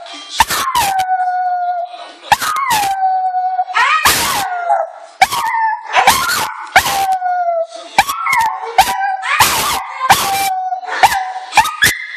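Small black-and-tan dog howling over and over, each howl about a second long, rising and then sinking to a held note, with sharp barks and yips in between.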